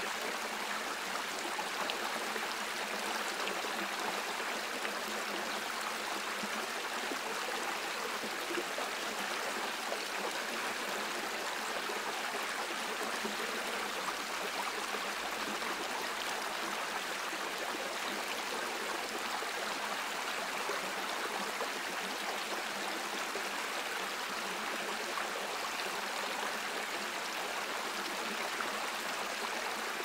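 A stream running: a steady, even rush of water with little deep rumble and no separate splashes standing out.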